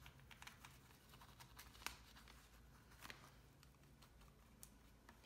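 Near silence: faint scrubbing and scratching of a paintbrush dry-brushing acrylic paint onto a canvas textured with stucco medium, with a few light clicks, the sharpest about two seconds in.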